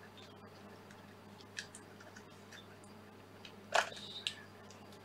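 A few light plastic clicks and handling knocks, with the two loudest near the end, as a 9-volt battery is worked into the Rode VideoMic's plastic battery compartment. A faint steady hum underneath.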